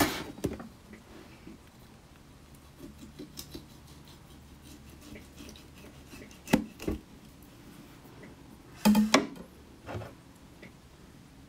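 Tableware being handled at a meal: quiet rustling with a few sharp clicks and knocks, two about six and a half seconds in and a louder cluster about nine seconds in.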